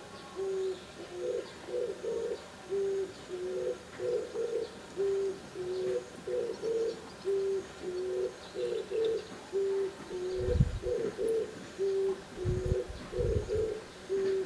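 Oriental turtle dove singing its low, hoarse cooing song, the same four-to-five-note phrase repeated over and over at a steady pace. A few short low rumbles come in over the last few seconds.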